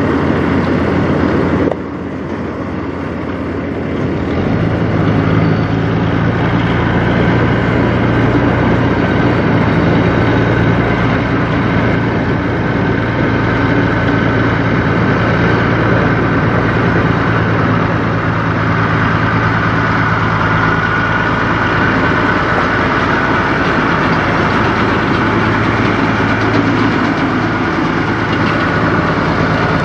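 Kenworth semi truck's diesel engine running at low, steady speed as the truck rolls slowly forward and past, a deep even engine note setting in a few seconds in.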